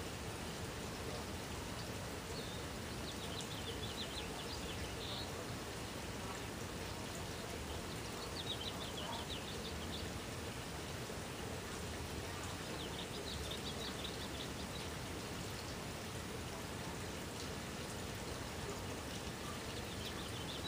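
Outdoor ambience: a steady hiss of background noise, with a bird singing short, rapid, high-pitched trills about every five seconds.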